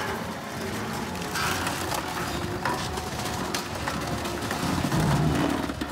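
Bomag refuse compactor's spiked steel wheels crushing a car, the body panels crunching and cracking irregularly, loudest about five seconds in.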